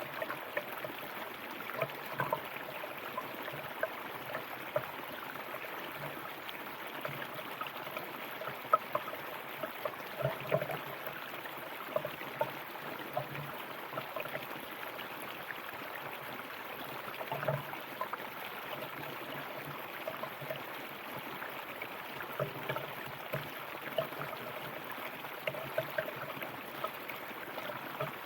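A river flowing over stones, a steady rushing babble with frequent small splashes and gurgles.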